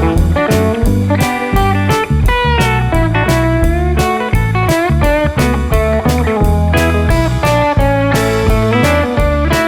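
Background music: blues-rock with electric guitar, bending lead notes over a steady drum beat and bass.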